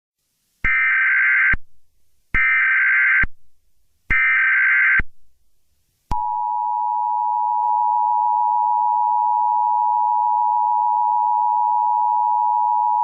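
Emergency Alert System tones. First come three short bursts of SAME header data, each a buzzing warble about a second long. Then, about six seconds in, the steady two-tone EAS attention signal (853 and 960 Hz) starts and holds; together they mark the opening of an emergency alert broadcast.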